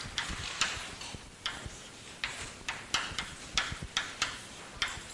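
Chalk on a blackboard while writing: a quick, irregular run of sharp taps and short scratchy strokes, about three or four a second.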